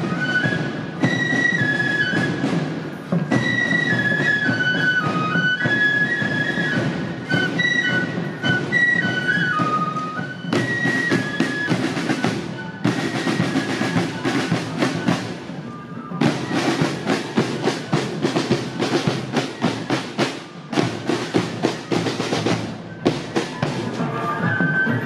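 Festival procession band of bamboo transverse flutes (shinobue) and snare-type marching drums. The flutes play a high, stepwise melody over the drums, then from about ten seconds in rapid drumming takes over with the flutes faint. The flute melody returns near the end.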